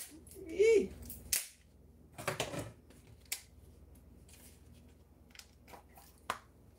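A plastic pack of glazed fruit mix being worked open by hand: a few sharp clicks and a stretch of plastic crinkling, with a short vocal sound about half a second in.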